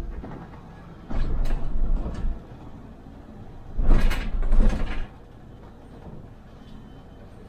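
MAN Lion's City hybrid city bus, heard from the driver's cab: two loud bursts of rumble and hiss, each a little over a second long, the first about a second in and the second near the middle, over a quieter steady running sound.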